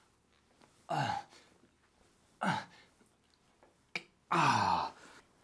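A man's strained grunts of effort, one with each rep as he raises a pair of dumbbells, about one every one and a half seconds and each falling in pitch. The third, about four and a half seconds in, is the longest and loudest, with a short click just before it.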